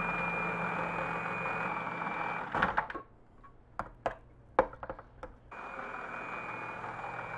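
Hamilton Beach food processor motor running steadily with a high whine, blending thick sweet potato hummus. It stops about two and a half seconds in. A few sharp clicks and knocks follow as a metal spoon scrapes down the plastic bowl. The motor starts again about two seconds before the end.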